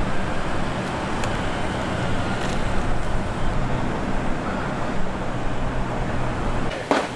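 Steady background noise with a low motor hum and a few faint clicks. Just before the end, a quick run of sharp knocks begins.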